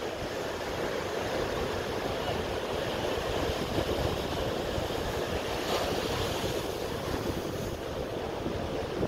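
Ocean surf breaking and washing up a sandy beach: a steady rushing wash of waves, with one slightly brighter crash about six seconds in.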